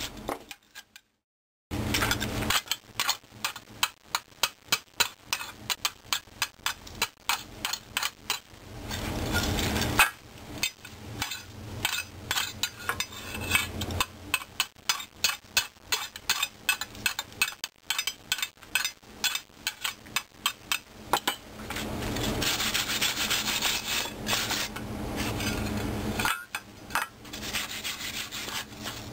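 Fresh flux-core welds on a steel plate being cleaned of slag by hand: rapid, irregular scraping and tapping strokes of a hand tool on metal, starting about two seconds in, with a steadier stretch of scrubbing near the end.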